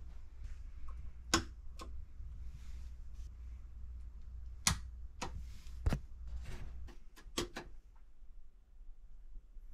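Sharp clicks, about seven spread over several seconds, as the buttons of a capsule room's wall light-switch panel are pressed and the lighting changes, with some handling knocks. A low steady hum underneath fades about seven seconds in.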